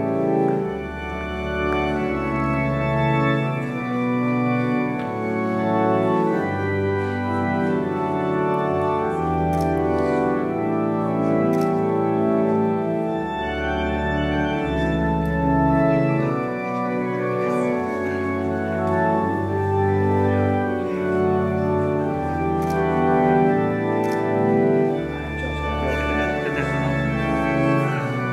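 Organ playing a slow wedding processional: held chords that change every second or two over long, deep bass notes.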